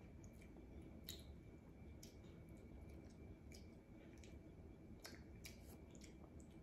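Near silence with faint, scattered wet mouth clicks of someone chewing fruit.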